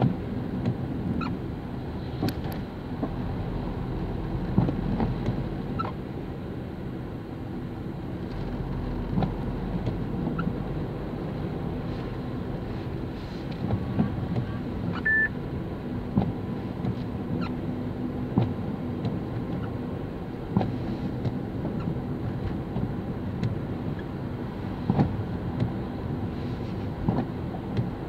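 Steady road and engine noise from inside a moving car on a wet road, with occasional sharp knocks and clicks and a short beep about halfway through.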